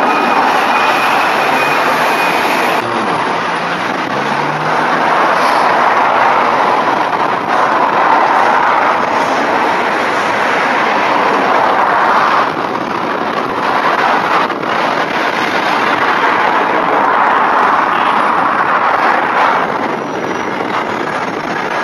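Single-deck buses running and manoeuvring around a bus station: a steady din of diesel engines and traffic, with one engine note rising briefly about four seconds in.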